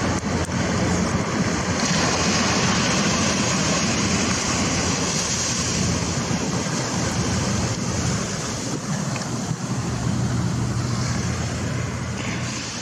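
Small waves breaking and washing up a sandy beach: a steady noise of surf with a low rumble underneath.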